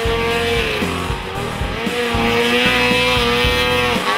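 Rock music soundtrack: a distorted electric guitar holds a long note over a stepping bass line and drums.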